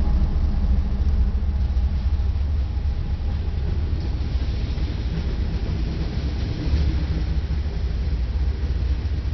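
A freight train rolling past close by. A diesel locomotive's engine hum fades in the first second, leaving a steady low rumble of freight cars rolling on the rails.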